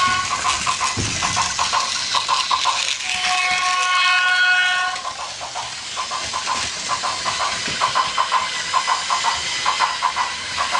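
Toy train's electronic sound effects: a steady whistle-like tone, held about a second and a half, sounds twice. Between and after the tones comes rapid, even clicking like rail clatter.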